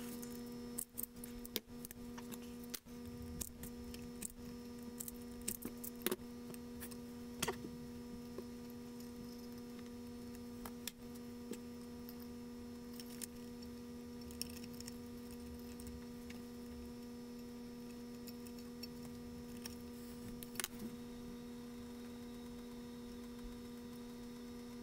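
Faint scattered clicks and light taps of hands handling small wires and plastic wire nuts, over a steady electrical hum.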